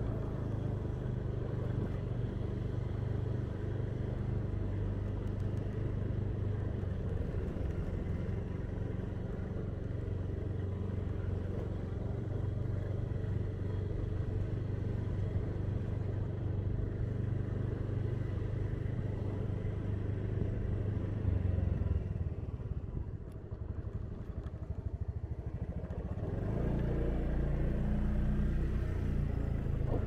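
A motorcycle engine running steadily under way, with road and street noise. Its low hum eases off for a few seconds near the end, then picks up again.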